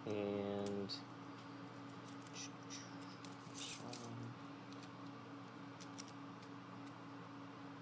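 Small scattered metallic clicks and light jingling as a padlock and its keys are handled.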